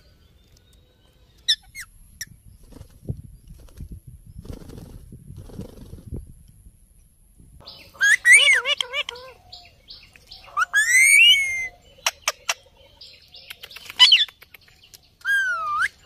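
Indian ringneck parakeets calling: a few short, loud squawks and warbling chatter with pitch that bends up and down, starting about halfway through, with a few sharp clicks between calls. The first half holds only soft rustling.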